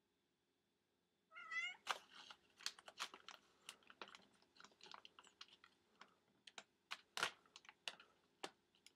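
A cat gives one short rising meow about a second in, followed by a long run of irregular sharp crinkles and clicks of plastic as a cat paws and noses at a plastic bag.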